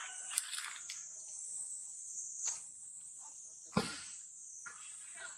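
A steady, high-pitched chorus of insects, crickets or cicadas, with a few faint knocks and one sharp thump about two-thirds of the way through.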